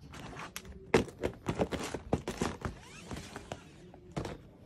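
Cardboard gift boxes and their lids being handled: a string of light knocks and taps, the sharpest knock about a second in and another near the end.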